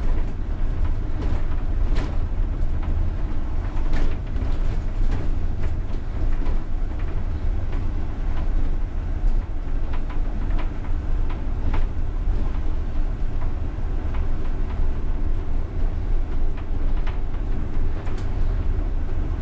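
A UTTZ-6241.01 (MAZ-203T) trolleybus driving, heard from the driver's cab: a steady low rumble and hum, with frequent short knocks and rattles.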